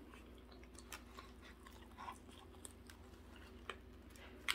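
Quiet chewing of a batter-fried chicken wing, with scattered small crunches and clicks and one sharper click near the end.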